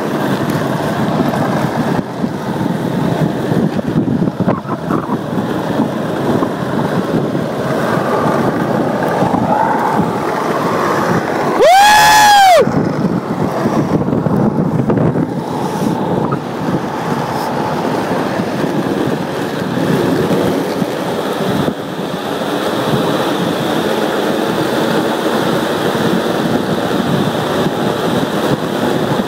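Skateboard wheels rolling over asphalt, with wind on the microphone, making a steady noise while riding downhill. About twelve seconds in, a short squeal that rises and then falls in pitch is briefly the loudest sound.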